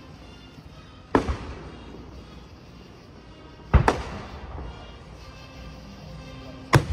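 Aerial firework shells bursting overhead: three loud, separate bangs, about a second in, near the middle and just before the end, each trailing off in a short echo.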